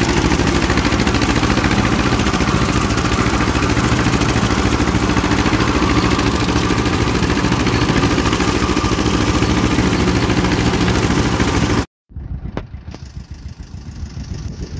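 1953 John Deere 40's engine running steadily up close while the tractor pulls a rotary cutter through tall grass. About twelve seconds in, the sound drops out for a moment, and the engine is then heard quieter and farther off, its level pulsing.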